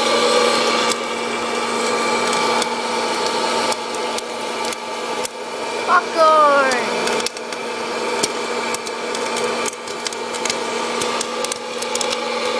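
A Presto PopLite hot-air popcorn popper runs with a steady fan-motor whine while kernels pop inside it, the sharp pops coming more often toward the end as the corn starts to pour out. About six seconds in there is a short falling whine.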